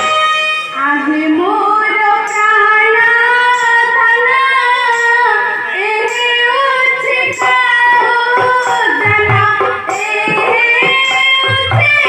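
A girl singing a slow, long-held melody through the stage sound system, with instrumental accompaniment; a few low drum strokes come in during the second half.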